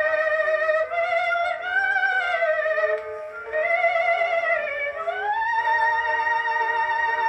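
Acoustic Edison disc phonograph playing an operatic soprano record through a reproducer fitted with replacement diaphragm gaskets: a woman's voice with wide vibrato over accompaniment, climbing about five seconds in to a long held high note.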